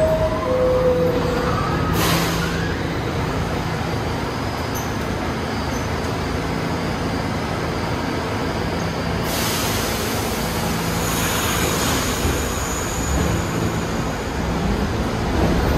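R68-series New York subway train standing at the platform with a steady electrical hum. A short falling two-tone door chime sounds near the start, followed about two seconds in by the knock of the doors closing. Near the middle comes a long air hiss from the brakes releasing, and near the end the train begins to pull out.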